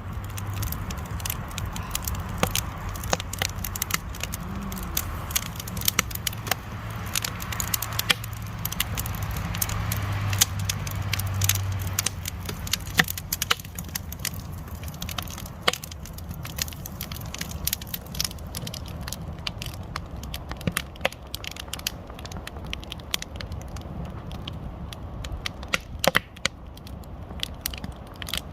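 Campfire of split firewood burning, with constant crackling and sharp snaps and pops as the logs burn. A low steady rumble sits under it for roughly the first twelve seconds.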